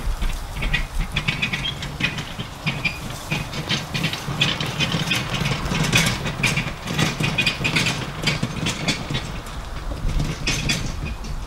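Golf cart running, towing a small dump trailer, with a steady low motor hum and irregular rattling and clattering throughout.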